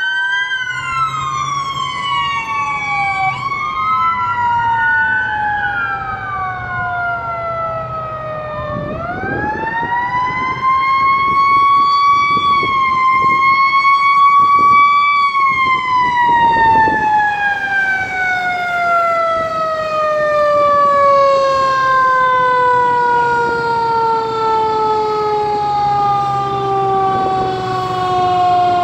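Fire engine siren wailing as the engine approaches: several overlapping rising and falling wails, then one long wail that climbs about nine seconds in, holds, and slowly winds down toward the end.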